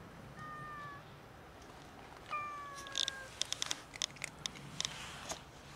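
A cat meowing twice, two short calls falling slightly in pitch, the second longer. Afterwards comes a quick run of sharp clicks, like cats crunching dry kibble.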